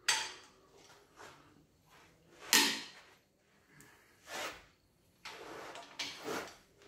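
Hand ratchet with a long handle working bolts on the cylinder head of a Dodge 5.9 Magnum V8: metal clicks and clanks from the tool and engine parts, spaced out, with the loudest sharp knock about two and a half seconds in.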